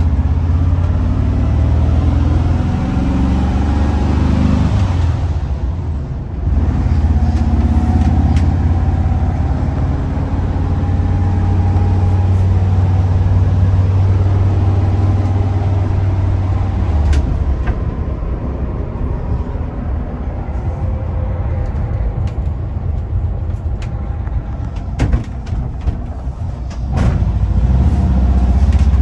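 Classic Volkswagen Bus's air-cooled flat-four engine running under way, heard from inside the rear cabin along with road noise. The engine sound dips briefly about six seconds in, is quieter for a stretch past the middle with a few sharp rattles, and rises again near the end.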